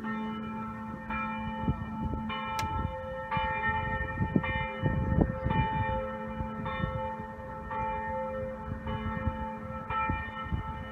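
Church bell tolling for 6 p.m., a stroke about every second, each ring hanging on and overlapping the next. Low rumbling bumps sound underneath, heaviest around the middle.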